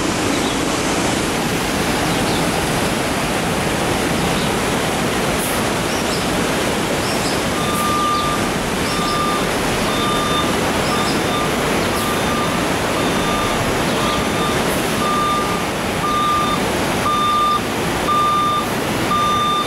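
Steady rush of a fast, rocky mountain river in spate, with a construction machine's reversing alarm beeping repeatedly from about seven seconds in.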